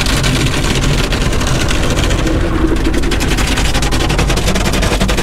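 Car wash spray and brushes beating on a car's body, a loud, fast, unbroken rattle over a low hum, heard from inside the closed cabin.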